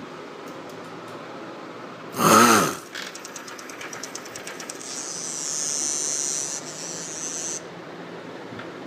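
A loud half-second sound just after two seconds in sets off a sound-activated circuit, and a small vibration motor then buzzes and rattles for about five seconds before cutting off suddenly as its timer runs out.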